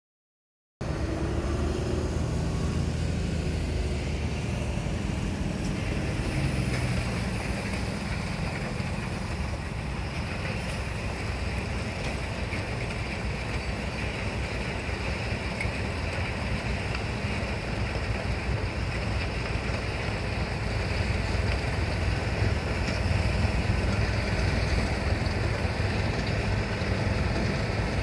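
Heavy diesel engines running steadily: a snow-loaded dump truck pulling away, then a rotary snowplow working. The rumble gets a little louder in the last several seconds.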